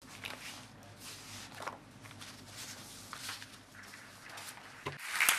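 Quiet hall ambience with scattered rustling and faint shuffling, then audience applause starts suddenly near the end.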